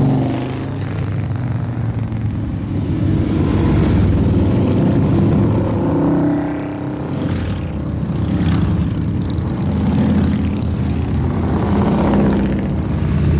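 A parade of motorcycles, mostly Harley-Davidson V-twins, riding past one after another. The engine sound swells and fades as each group goes by, with falling pitch as bikes pass.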